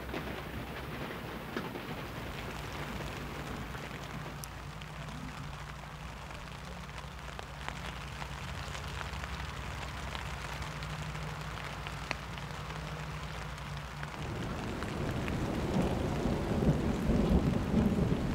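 Rain pattering on a nylon dome tent, heard from inside, getting louder near the end.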